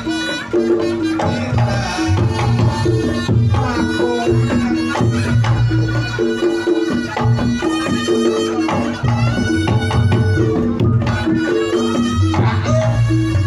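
Reog Ponorogo gamelan music in the srampat pattern: kendang drums beating under a repeating figure of gong-chime notes, with a shrill reed-trumpet melody over the top.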